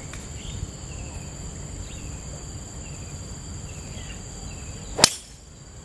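A driver strikes a golf ball off the tee about five seconds in: one sharp crack, the loudest sound, hit as a drawn hook. Under it a steady high insect drone runs throughout.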